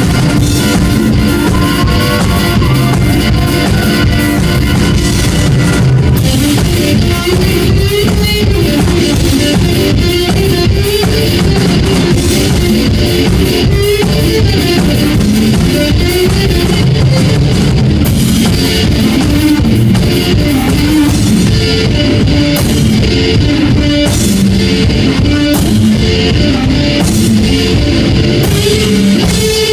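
Live rock band playing loud: electric guitar and drum kit driving a rock song with a steady beat.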